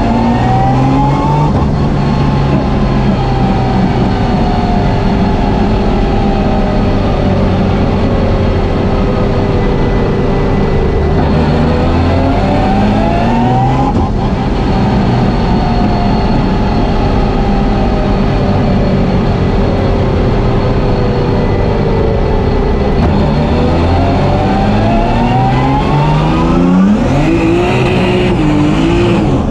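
Engine of a 650 hp turbocharged BMW M3 drift car, heard from inside the cockpit, revving hard in second gear. The pitch climbs steeply three times and drops away between the climbs as the throttle is worked through the slides.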